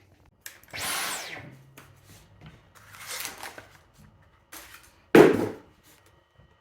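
Plastic parts of a Dyson V15 Detect cordless vacuum being handled and fitted together: scattered rustling and small clicks, with one sharp loud knock about five seconds in.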